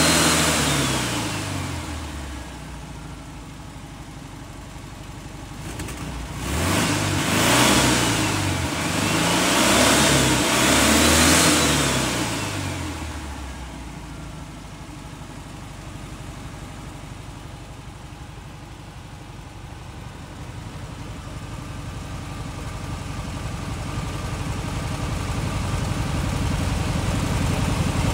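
1961 VW Kombi's air-cooled flat-four engine revved by hand at the carburettor throttle: the revs fall back to idle at the start, three more quick blips rise and fall around the middle, then it settles to a steady idle. The sound grows louder again near the end.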